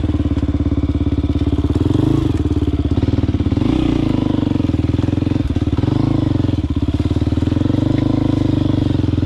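Motorcycle engine running steadily at low revs, with brief small rises in pitch about two and four seconds in.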